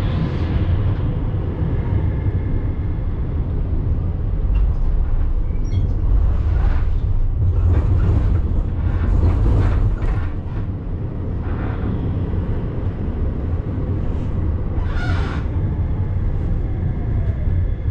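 Munich tram running on rails, heard from on board: a steady low rumble with several short clattering knocks from the wheels and track. Near the end, the motor's whine falls in pitch as the tram slows.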